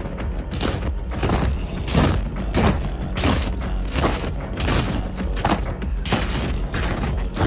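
Boots crunching and breaking through an ice crust on top of snow, with a step about every two-thirds of a second.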